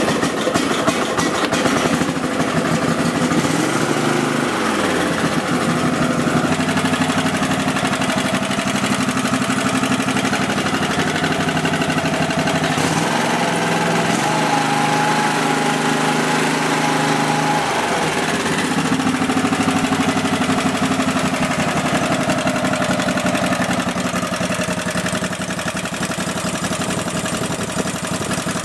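Kohler V-twin engine of a Husqvarna YTH-180 lawn tractor running just after a choked start, its speed changing a few times as the throttle is worked. It keeps running under throttle now that the fuel shut-off solenoid wiring is repaired: the fault that made it start and then die is cured.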